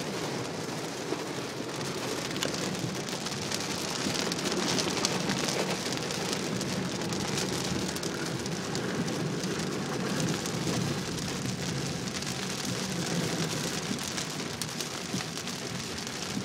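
Heavy rain drumming on a car's roof and windscreen, heard from inside the cabin: a steady, dense patter of drops.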